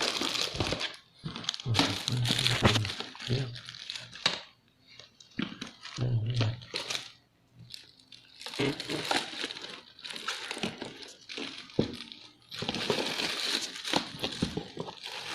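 Plastic packaging crinkling and rustling in several separate bursts as small camera accessories are unwrapped and handled.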